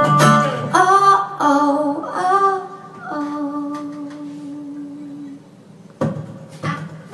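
Acoustic band ending a song: a singer's last sung phrases over acoustic guitar, then one long held note that fades away. About six seconds in, a sudden knock sounds, just before the audience begins clapping.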